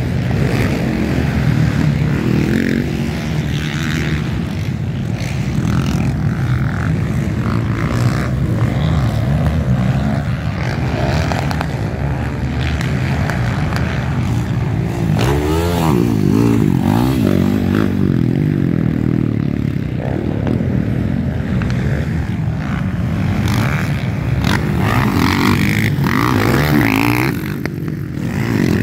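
Motocross bikes' engines running hard as the bikes race past on the dirt track, rising and falling in pitch as the riders work the throttle, with one bike after another coming through.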